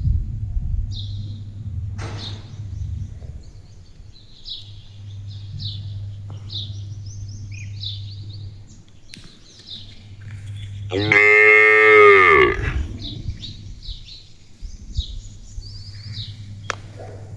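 A desi cow gives one long moo about eleven seconds in, its pitch falling at the end. Small birds chirp throughout, and a steady low hum runs underneath for most of the first part.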